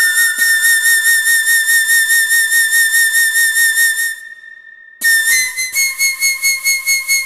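Background music: long held, flute-like whistling notes with a fast, even pulse. They drop out for about a second a little past halfway, then come back on slightly shifted pitches.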